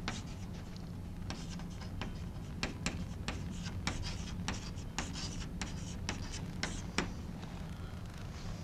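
Chalk writing on a blackboard: a run of short, sharp taps and scratches at an irregular pace, a few a second, as letters are written.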